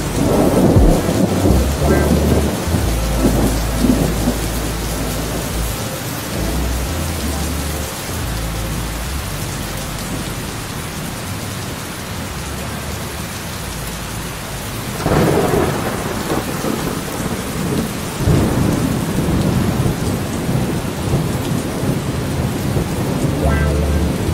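Steady heavy rain with rolls of thunder: a rumble at the start, a louder one that breaks sharply about fifteen seconds in, and another a few seconds after.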